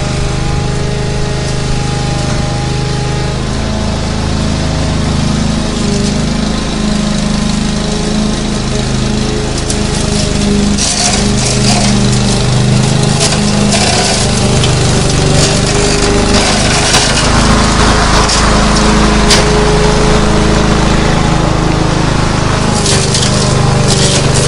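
Lawn mower engine running steadily under load, with brief bursts of crackling cutting noise about halfway through and again near the end.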